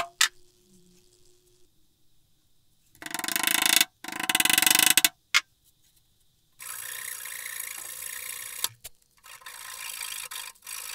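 Flush trim saw cutting wooden plugs flush with a cedar board. Two short, loud passes come a few seconds in, then a longer, quieter stretch of steady sawing with a brief break in the middle.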